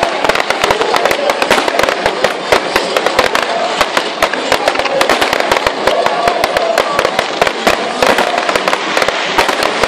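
Fireworks display: aerial shells bursting and crackling in a dense, unbroken string of sharp bangs, several a second.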